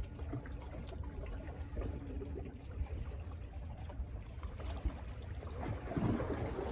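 Seawater lapping and trickling against shoreline rocks over a low steady rumble, with a louder splash about six seconds in.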